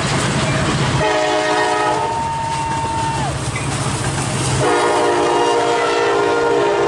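Freight locomotive's air horn sounding two long blasts of a steady chord, the second starting about a second and a half after the first ends, over the rumble of the train.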